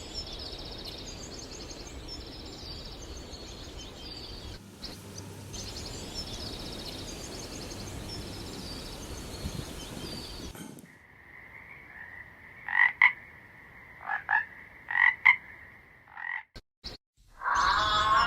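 Animal calls: a chorus of repeated high trills over a steady noisy background for about ten seconds. Then, after a cut, a single steady high trill with several loud, short calls over it.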